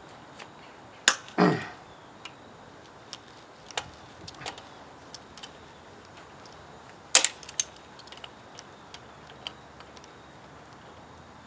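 Hand tools clicking and clanking on metal while a broken exhaust manifold stud is worked loose: two sharp clanks about a second in, the second trailing a short falling squeal, another loud clank near the middle, and light ticks scattered between.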